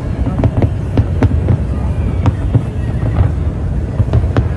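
Aerial fireworks shells bursting: a rapid, irregular series of sharp bangs and crackles over a steady low rumble.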